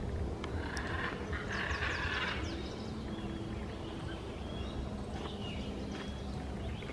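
Aviary birds calling: a dense burst of quick chirps and short falling calls in the first two seconds or so, then scattered fainter chirps over a steady low rumble.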